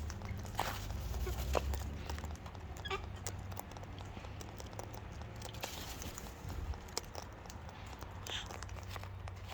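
Cockatoos feeding on seed, with scattered clicks and taps of beaks and feet and a couple of short, faint calls, one about three seconds in and one near the end.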